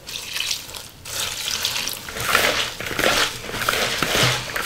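Vinegar poured from a plastic gallon jug into a bowl of sliced cabbage, carrots and cucumbers, splashing unevenly over the vegetables; near the end a gloved hand tosses the vegetables in the bowl.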